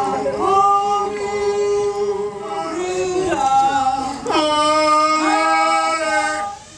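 Singing voices holding long notes, sliding up into each new note, with a higher note taken up about four seconds in; the singing stops just before the end.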